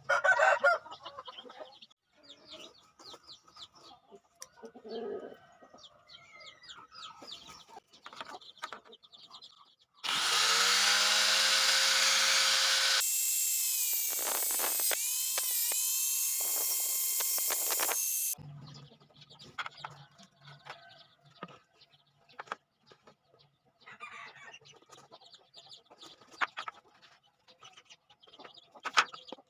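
An electric drill runs for about eight seconds in the middle, spinning up at the start and dipping in pitch several times before it cuts off. Chickens cluck and scratch faintly before and after, with a loud squawk right at the start.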